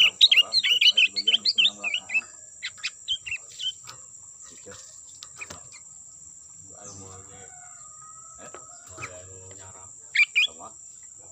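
Sooty-headed bulbul (kutilang) calling: a quick run of chattering chirps for about two seconds, a few scattered notes after, and another short burst near the end.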